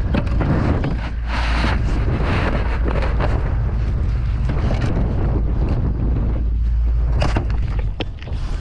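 Wind buffeting the microphone as a steady, heavy low rumble, with a few short louder noises about a second and a half in and again near the end.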